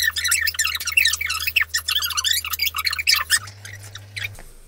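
Rapid, high-pitched squeaky chattering of voices: dialogue played fast-forward, pitched up like chipmunks. A steady low hum runs beneath, steps up in pitch about three seconds in, and stops shortly after.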